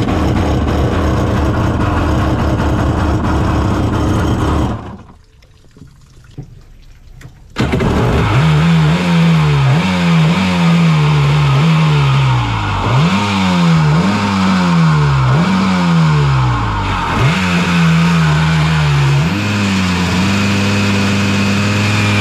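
1994 Kawasaki jet ski's twin-carburettor 750 two-stroke engine starting on a flushing hose: it runs for about five seconds and stops, then starts again about eight seconds in. It is revved in about six blips, the pitch rising and falling each time, then settles to a steady idle near the end.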